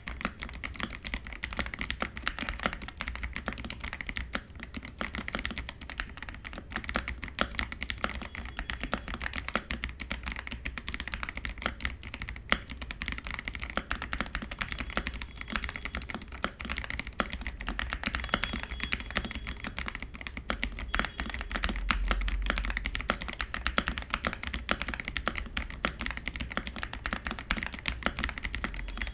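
Continuous fast typing on a Xinmeng X87 gasket-mounted mechanical keyboard fitted with Outemu Yellow switches: a dense, unbroken stream of key clacks.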